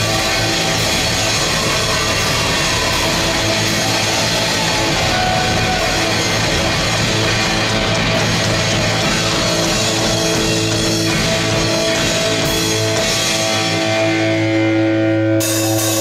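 A live hard rock band plays loud: distorted electric guitars, bass and a drum kit. In the last few seconds the band holds a long ringing chord, and a full crash comes back in just before the end.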